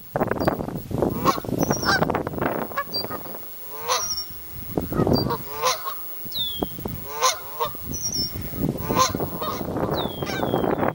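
Canada geese honking repeatedly, with short high falling peeps scattered among the honks.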